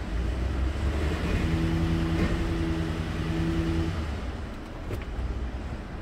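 2010 Ford F-150's engine idling steadily, heard from the cab, a low rumble running smoothly without stalling. A steady hum joins it for a couple of seconds in the middle.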